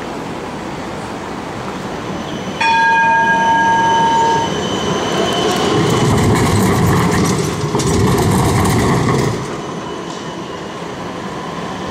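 A tram's warning gong sounds for about two seconds, starting suddenly some two and a half seconds in. Then a Siemens Combino tram runs past close by, its wheels clacking over the rail joints and crossings for about four seconds before the noise drops back.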